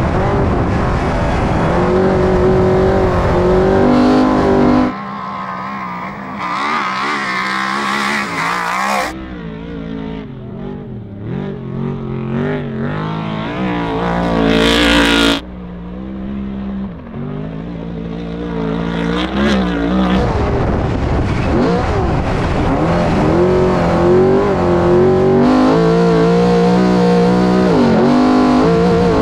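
Off-road trophy truck's engine revving hard at racing speed, its pitch rising, falling and stepping between gears, with the sound changing abruptly several times. About halfway through the truck passes close by with a loud rush of noise.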